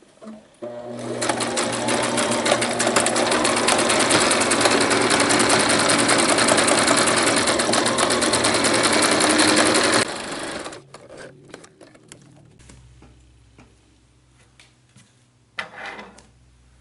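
Domestic sewing machine running a zigzag stitch along the edge of denim fabric: it starts about half a second in, runs steadily at speed for about nine seconds, then stops abruptly.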